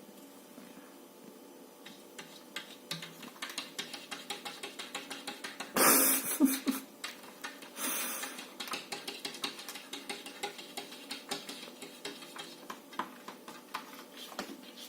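Siamese cat tapping on window glass: a long, irregular run of quick taps, several a second, with two louder, rougher bursts about six and eight seconds in.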